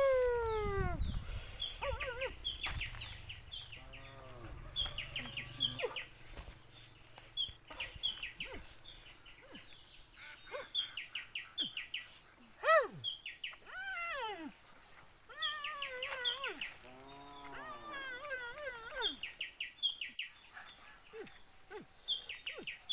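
Birds calling: clusters of short high chirps and repeated arching, swooping calls, over a steady high-pitched insect drone. The loudest is a falling call at the very start.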